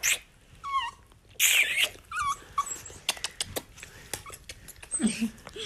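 A small dog whining and crying in a few short, high cries that fall in pitch, with a loud breathy burst about one and a half seconds in and quick clicks around the middle. A lower, falling cry comes near the end.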